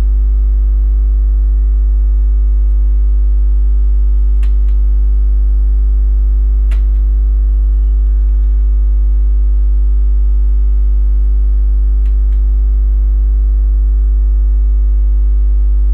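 Loud, steady electrical mains hum with a stack of overtones, picked up by the recording, with a few faint clicks.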